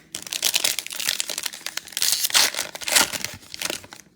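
Foil wrapper of a trading card pack being crinkled and torn open by hand, in a run of quick crackles that stops abruptly near the end.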